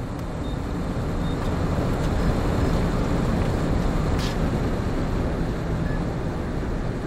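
Patrol car driving on the road: steady engine and road noise that builds a little over the first couple of seconds, then holds.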